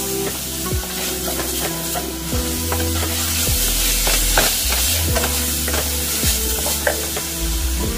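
Ground pork sizzling in oil in a skillet while a wooden spatula stirs it, scraping and knocking against the pan now and then.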